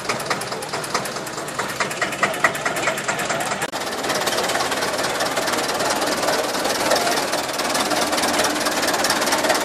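Vintage tractor engines running as decorated tractors drive slowly past, with a rapid, even knocking beat. About four seconds in the sound changes abruptly to a closer, denser engine sound.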